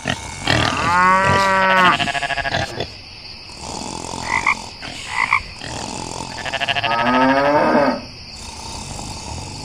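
Cow mooing twice in long calls, with two short higher animal calls between them, over a steady thin high-pitched background tone.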